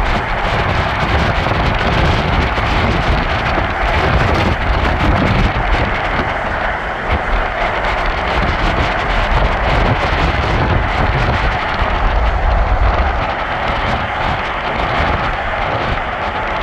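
Steady wind buffeting the microphone over the low rumble of a moving vehicle.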